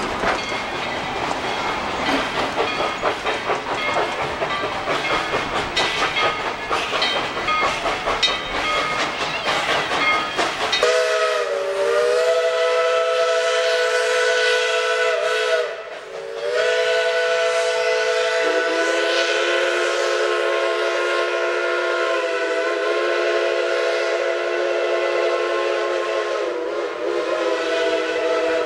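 Two steam locomotives at work on a narrow-gauge passenger train: rapid exhaust beats and running noise, then about eleven seconds in a chime steam whistle sounding several tones at once, blown long. The whistle dips briefly about five seconds after it starts and then carries on, and a couple of seconds later one of its notes steps lower.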